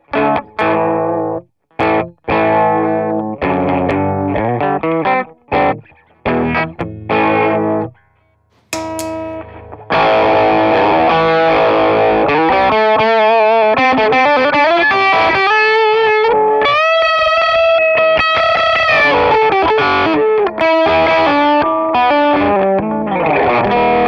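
Electric guitar played with a pick through a StewMac Ghost Drive, a Klon-type overdrive pedal. The first eight seconds are short chord stabs with gaps between them; a brief click comes near nine seconds. From about ten seconds in, sustained lead lines with string bends and vibrato follow.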